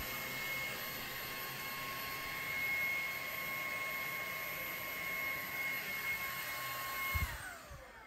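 AEG Ultimate 8000 cordless handheld vacuum with its small brush attachment running, a steady motor whine over the suction rush. Near the end it is switched off, and the whine falls in pitch as the motor spins down.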